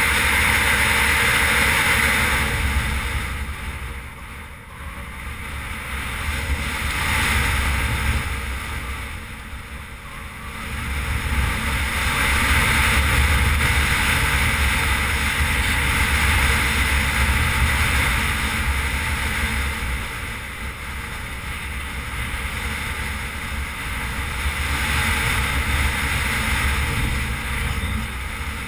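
Wind rushing over a helmet camera's microphone, with a Suzuki V-Strom 650 motorcycle's engine and tyres on a dirt road underneath. The rush swells and eases, dipping twice in the first ten seconds.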